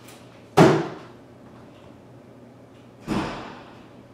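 Two loud sudden bangs about two and a half seconds apart, the first the louder, each dying away within half a second.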